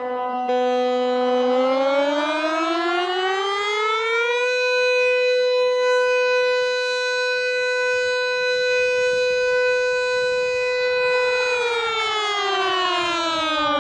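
Air raid siren played in reverse. Its wail starts low, rises in pitch over about three seconds, and holds one steady note for about seven seconds. Near the end it falls in pitch again.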